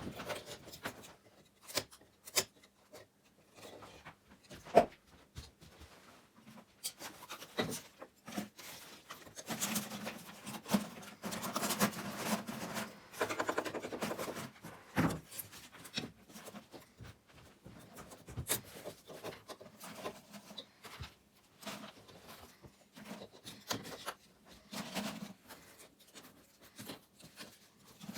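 Hand work on old wooden roof boards: irregular scraping and rubbing on wood, broken by sharp knocks and clicks, with a longer stretch of steady scraping about ten to fourteen seconds in.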